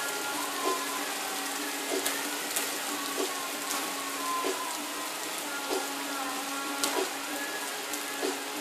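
Steady rain hiss, with irregular sharp ticks of drops striking a hard surface close by, over a faint steady low hum.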